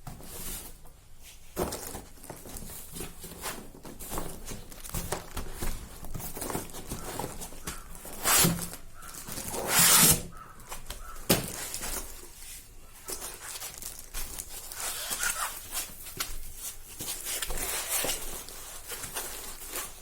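Packaging being handled during a laptop unboxing: continual rustling and small clicks, with two louder, longer rushes of noise about eight and ten seconds in and a sharp click soon after.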